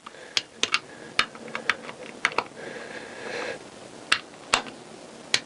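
Sharp, uneven clicks of a socket ratchet and torque wrench tightening the sump-pan bolts on a Honda CBR1000F engine's crankcase, with a short ratcheting rasp about halfway through.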